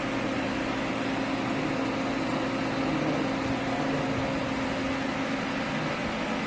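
Doosan PUMA 5100XLM CNC turn-mill running while machining a large screw: a steady machine hum with a couple of steady low tones under an even hiss.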